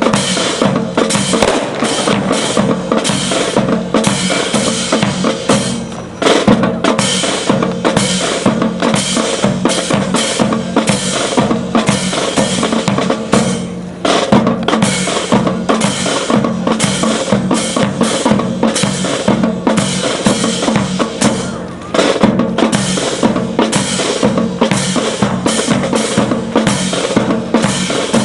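Marching-band music driven by a snare and bass drum cadence, with sustained pitched parts underneath, playing in phrases that briefly dip and restart about every eight seconds.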